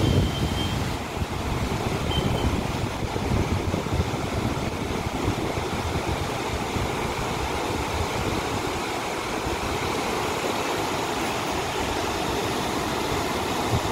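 Steady rushing of the Tons River in flood, fast muddy water churning over and around boulders.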